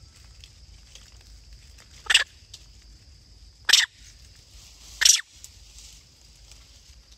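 Young macaque giving three short, loud squeals about a second and a half apart, over a steady high insect drone.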